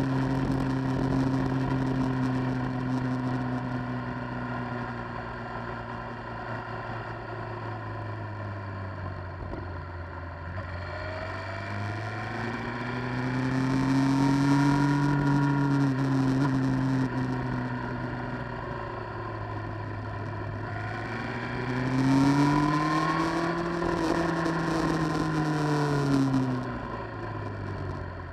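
Vehicle engine running while descending a hill, its pitch sinking slowly at first, then rising and falling twice as speed changes, with wind noise over the top.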